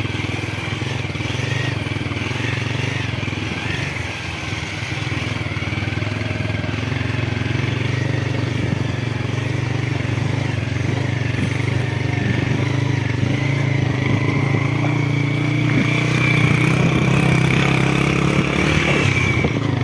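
Motorcycle engine running steadily while riding along a rough dirt road, with small clatters, getting a little louder in the last few seconds.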